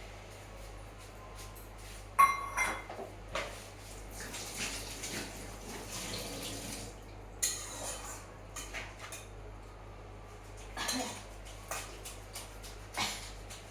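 Metal pots and utensils clattering and clanking in a kitchen. A sharp, ringing metal clang about two seconds in is the loudest, followed by scattered knocks and scrapes.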